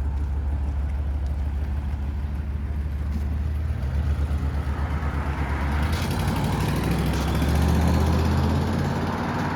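Box Chevy Caprice's carbureted engine rumbling as the car pulls away and moves off slowly, the engine note swelling about four seconds in and again near the end.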